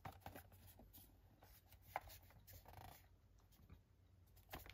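Near silence with faint handling noise: light taps and rubbing as a metal steelbook case is turned over in the hands, with one sharper click about two seconds in.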